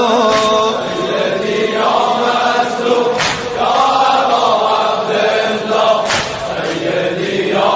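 Devotional chant of a Shia lament (noha): a group of voices chanting together over music, with a sharp beat about every three seconds.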